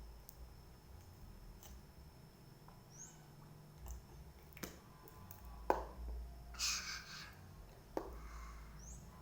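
Faint eating sounds of a person eating noodles: scattered sharp mouth or utensil clicks, with a short noisy burst a little before seven seconds in.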